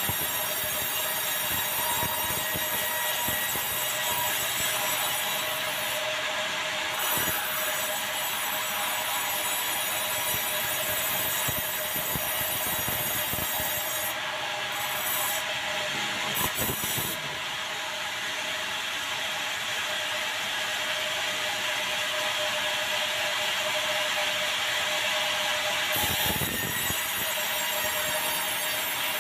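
Sawmill saw cutting through a squared beam of hard, dry bengkirai (yellow balau) timber: a steady high-pitched whine over the rasping noise of the cut, with small changes as the timber is fed through.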